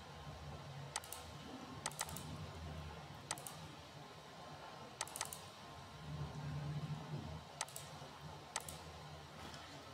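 Scattered sharp clicks of a computer mouse, about ten in all, some in quick pairs like double-clicks, over a faint low hum.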